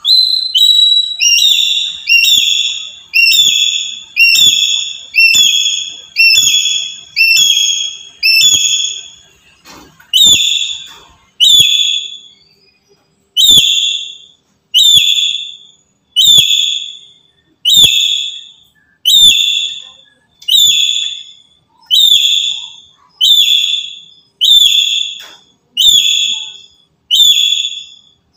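Black-capped lory giving a long series of loud, shrill calls, each about half a second long. They come about one and a half per second, then after a short pause partway through, about one every second and a half.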